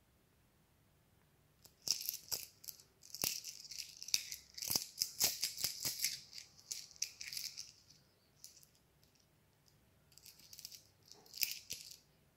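Coins jingling and clinking as they are shaken, in a long run of quick shakes, then in shorter bursts near the end.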